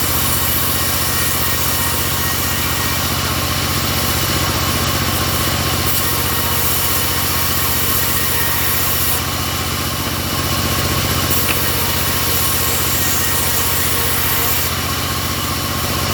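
Engine of a homemade bandsaw sawmill running steadily, its level easing slightly twice.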